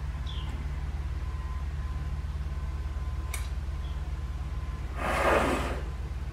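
Small metallic clicks of coil springs being set by hand into a transmission direct clutch drum, over a steady low hum; about five seconds in, a short loud breathing sound.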